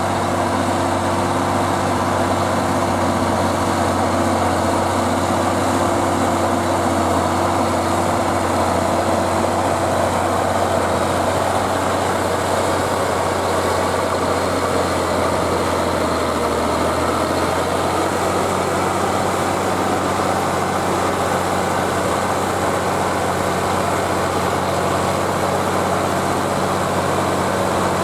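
Diesel engine of a Zetor Crystal 12145 tractor running steadily under load while pulling a five-furrow plough through wet ground, with a brief change in engine note about halfway through.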